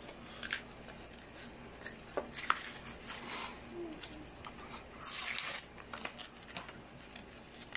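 A Pokémon trading-card blister pack being pulled open by hand: cardboard backing peeled away from the plastic shell, with scattered clicks and snaps of plastic and a louder stretch of crinkling and tearing about five seconds in.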